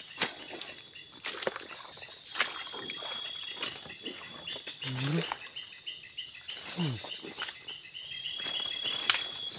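Night insect chorus of crickets and similar insects: several steady high-pitched trills, with a pulsing call joining about halfway through. Scattered sharp clicks of twigs and brush being moved, and a couple of brief low voice sounds.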